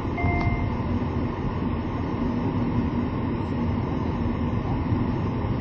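Car engine running with a steady dense rumble: the abnormal engine knocking (pinging) that this car is said to have had on and off since new. A short beep sounds near the start.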